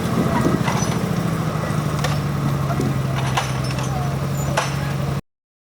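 Diesel engine of cable-yarding logging machinery running steadily, its pitch dropping slightly about halfway through, with a few sharp knocks scattered over it. The sound cuts off abruptly near the end.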